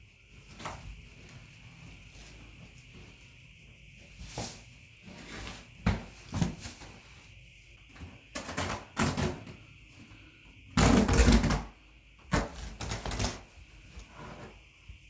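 Wall-to-wall carpet being pulled up by hand: irregular knocks and clatters, with a loud rough burst lasting about a second roughly eleven seconds in.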